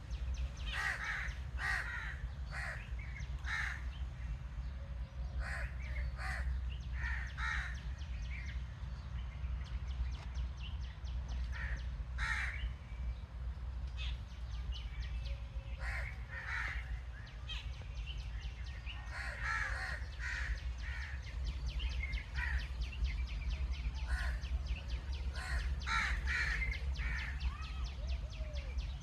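Crows cawing again and again in bunches of short calls, over a steady low rumble.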